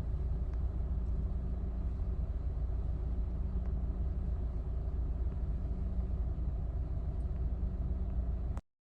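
Steady low rumble of jet aircraft engines, cutting off suddenly near the end.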